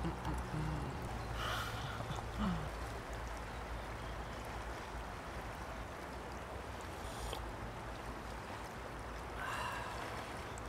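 River water flowing steadily in the background. Coffee trickles from a pouch into an enamel mug at the start, followed by a few short breathy sips and exhales as the coffee is drunk.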